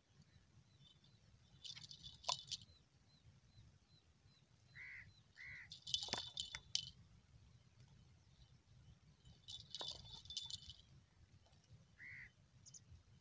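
Small bite-alarm bells on hand-lines jingling in three short bursts as a fish tugs at the bait, with a few short bird chirps in between.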